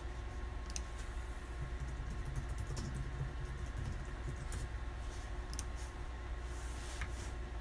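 Steady low room hum with scattered faint clicks and taps.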